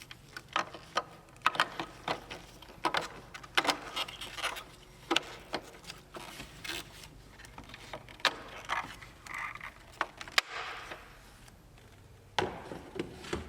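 Irregular plastic clicks, knocks and rubbing from handling a car tail-light bulb socket and lamp assembly as it is twisted back in and refitted.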